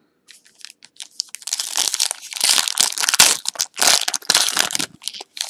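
A trading card pack's wrapper being torn open and crinkled by hand, a dense crackling with many sharp crinkles, busiest in the middle few seconds.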